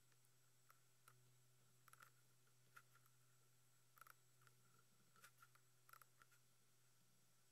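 Near silence with faint, irregular clicks of a computer keyboard and mouse as code is typed and edited.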